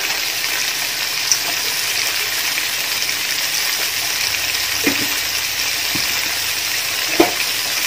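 Onions, ginger, garlic and green chillies sizzling steadily in hot oil in a large aluminium pot, with a light knock near the end.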